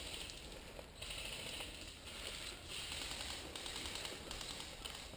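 Brambles, ivy and dry leaf litter rustling and crunching in repeated bursts, about one a second, as a person pushes through undergrowth on foot.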